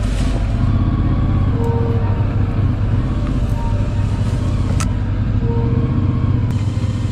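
CFMoto 450MT's parallel-twin engine running at steady revs while the motorcycle is ridden, with one sharp click about two-thirds of the way through.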